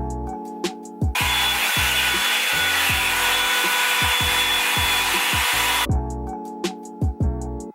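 Revlon One Step hot-air dryer brush running: a steady rush of blown air with a faint motor whine, coming in suddenly about a second in and cutting off about five seconds later, over background music.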